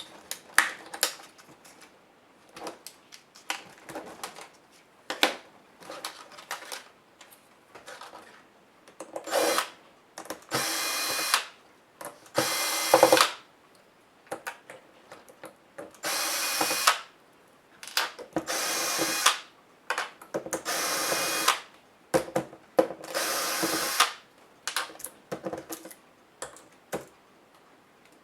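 Small electric screwdriver driving laptop screws in several short runs of about a second each, with light clicks of plastic parts and screws being handled between them.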